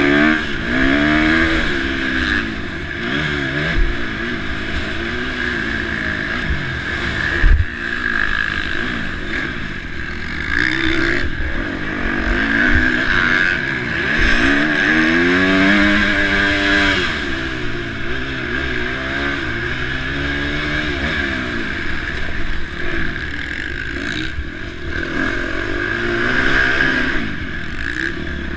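KTM 350 SX-F motocross bike's single-cylinder four-stroke engine revving hard and dropping back again and again, its pitch climbing and falling through the gears. A sharp thump comes about seven and a half seconds in.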